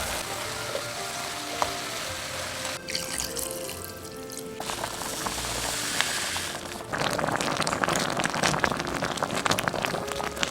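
Background music over kitchen sounds: water running, then a dense crackling sizzle from about seven seconds in.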